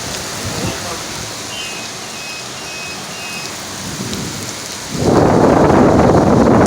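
Steady rain falling in a thunderstorm. About five seconds in, a sudden, much louder rush of storm noise sets in and keeps going.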